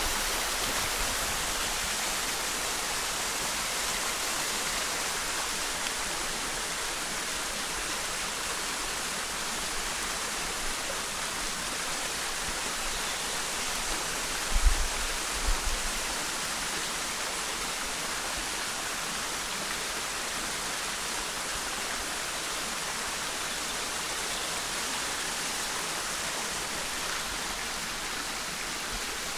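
Shallow stream running over a rocky, pebbly bed, a steady babbling rush of water. About halfway through there are two brief low thumps.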